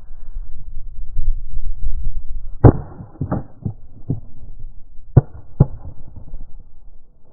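Low rumble of wind or handling on the microphone, then a run of six sharp knocks or thumps over about three seconds. The first is the loudest.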